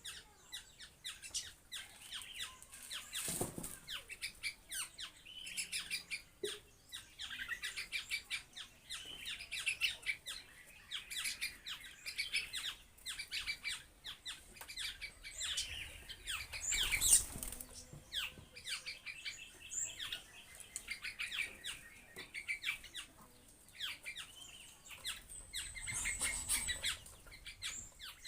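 Birds giving rapid, repeated short chirps and calls, with a few louder bursts of wing flapping about three, seventeen and twenty-six seconds in.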